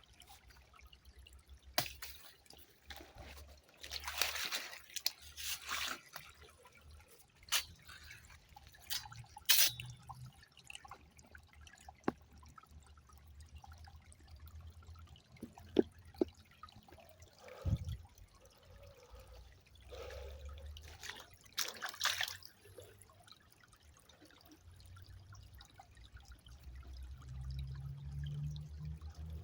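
River water trickling and splashing, with irregular louder splashes every few seconds over a low steady rumble.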